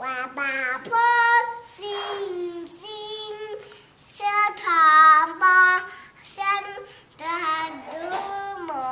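A toddler singing wordlessly in drawn-out, wavering notes: a string of short sung phrases with brief breaks, the pitch sliding up and down, loudest about halfway through.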